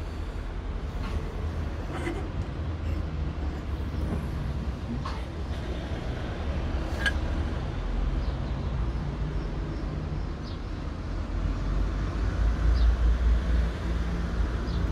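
Low, steady outdoor rumble of city street traffic that swells near the end, with a few faint clicks as the stainless steel rod holder is handled.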